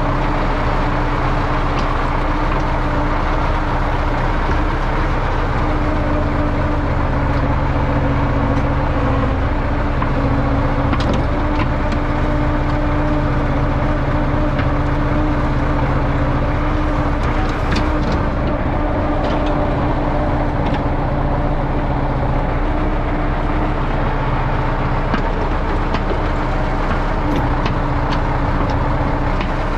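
YuMZ EO-2621 excavator's diesel engine running steadily under work, with a few brief sharp knocks scattered through it.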